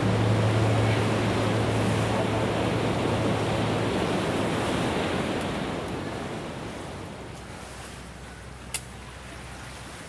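A small motorboat's engine hum under a wash of water and wind noise, all fading away gradually; the hum drops out about halfway through. A single sharp click near the end.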